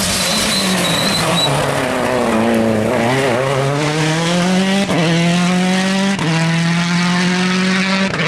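Rally car engine dropping in pitch as it slows, then accelerating hard from about three seconds in. Its note climbs and falls back sharply at each of three upshifts.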